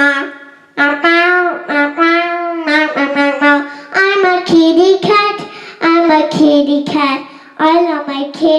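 A child singing a tune in short phrases with no clear words, in a high voice.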